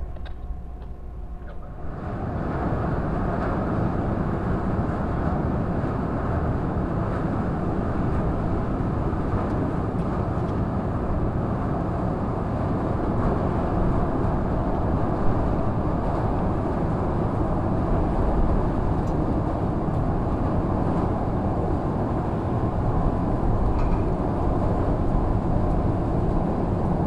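Steady low rumble of a large passenger ferry's engines coming in to dock, starting abruptly about two seconds in and holding level.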